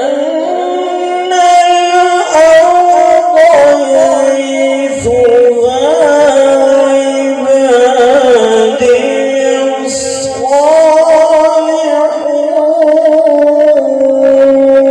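Male Quran reciter chanting in the melodic mujawwad style, drawing one phrase out in long, ornamented, wavering notes. About ten seconds in he steps up to a higher pitch and holds it.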